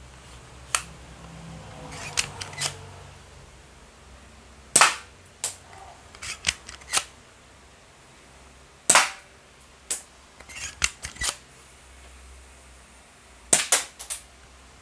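Toy Beretta pellet pistol being fired at disposable plastic cups: a series of sharp cracks, the loudest about five and nine seconds in, with clusters of lighter clicks and taps between the shots.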